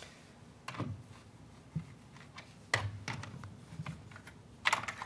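Screwdriver bit clicking against a screw and the metal door-closer bracket of a storm door as the screw is loosened: a few separate clicks about a second apart, then a quick run of clicks near the end.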